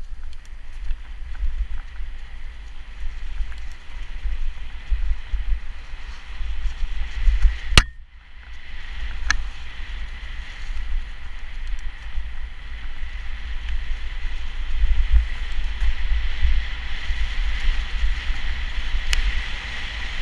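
Mountain bike rolling fast down a dirt trail: wind buffets the camera microphone with a low rumble over the rattle and hiss of tyres on dirt and dry leaves. A sharp knock comes about eight seconds in, with a couple of lighter clicks later.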